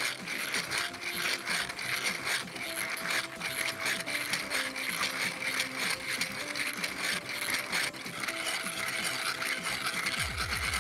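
3D-printed plastic seven-cylinder radial engine model turned by hand: its pistons, connecting rods and hub make a dense, irregular clicking rattle as the pistons slide in their cylinders. Background music plays underneath.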